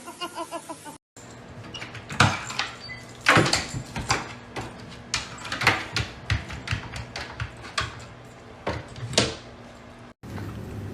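A run of irregular knocks and clattering thuds, as of a door or cupboard being banged, the sharpest about two, three and a half and nine seconds in.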